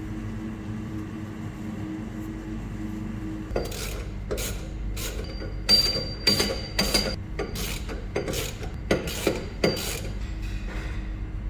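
A hand tool working on metal wheel-shaft and bearing parts: about a dozen short metal-on-metal strokes, roughly two a second, some with a high ringing tone, starting a few seconds in and stopping near the end. A steady low hum runs underneath.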